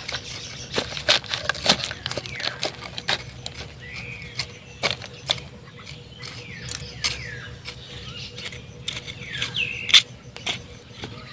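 Scattered clicks and crunches of soil and crushed eggshells being stirred by hand in a pot, the loudest about ten seconds in. High chirps that slide in pitch come several times in the background.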